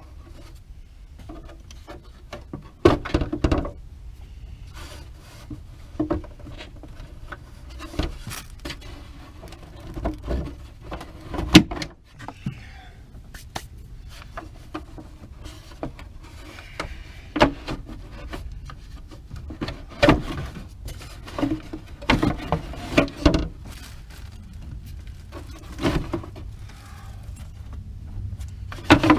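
Irregular clicks, knocks and rattles of hand tools and parts being handled on an engine. The cover over the driver's-side cylinder bank of a 5.7 Hemi is being taken off to reach the ignition coil. The sharpest knocks come about 3 and 11 seconds in.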